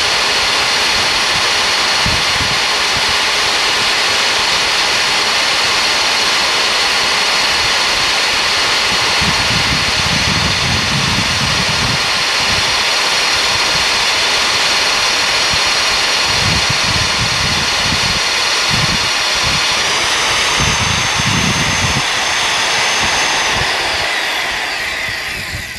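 Magnetic-base drill boring a hole through thick steel plate with a lubricated cutter, its motor running with a steady high whine over cutting noise. About twenty seconds in the whine rises slightly, then falls as the motor winds down and stops at the end, leaving a cut-out steel plug.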